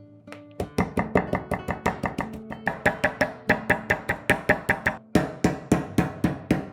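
Background music: acoustic guitar strummed in a quick, even rhythm of about four strums a second, with a short break about five seconds in.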